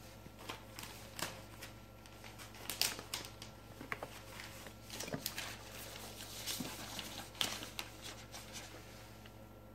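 Hands handling unboxing packaging and accessories: scattered light clicks and rustles, busiest in the middle, over a faint steady hum.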